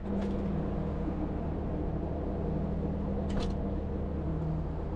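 Steady low drone of a container ship's machinery and ventilation, with a steady hum in it, heard on the outer deck, and one brief sharp sound about three and a half seconds in.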